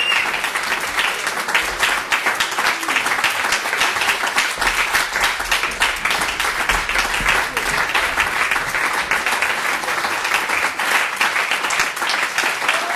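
Theatre audience applauding steadily during a curtain call, a dense mass of many hands clapping.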